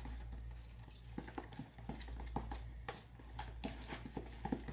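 Irregular soft clicks and squishes of a utensil stirring glue and shaving cream into a fluffy slime mixture in a bowl, over a low steady hum.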